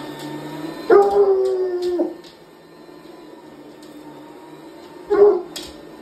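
Hound dog howling at a running canister vacuum cleaner: one long howl about a second in, falling slightly in pitch, then a short bay near the end. The vacuum's steady hum runs underneath.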